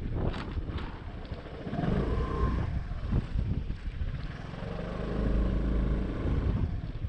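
A car's engine and road noise as it moves slowly while parking, with the low engine drone swelling about five seconds in.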